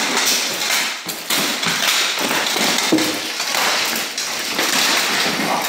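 Armoured combat sparring: rattan weapons striking steel armour and a shield in a rapid, uneven run of knocks and thuds, mixed with the clatter of plate armour as the fighters move.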